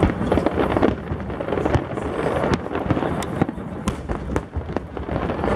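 Fireworks display: aerial shells bursting in a dense, irregular barrage of bangs and crackling.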